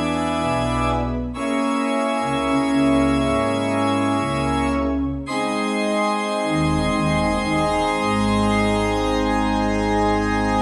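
Organ playing slow, sustained chords over a moving bass line, the chords changing about a second and a half in and again about five seconds in.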